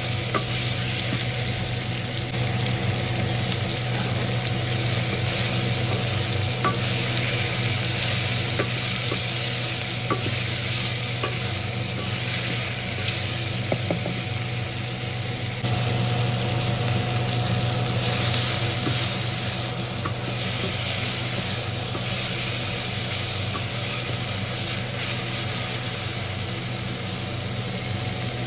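Sliced bell peppers, onion and carrot sizzling as they stir-fry in a stainless steel pot, with a steady hiss and a wooden spoon stirring and lightly clicking against the pot.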